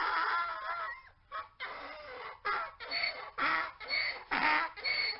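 Mule braying: a long, drawn-out pitched call that breaks about a second in into a run of rhythmic hee-haw pulses, about two a second.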